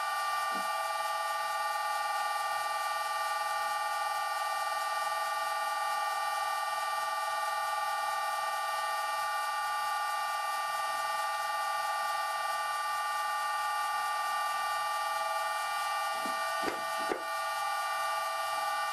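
Vintage Karger lathe headstock running at a steady speed, the rebuilt spindle turning in its scraped bronze bearings: a steady whine made of several even tones. A few light knocks near the end.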